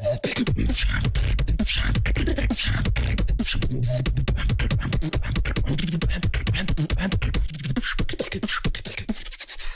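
Solo beatboxing into a microphone: a fast run of sharp percussive clicks and snares over a deep, continuous bass.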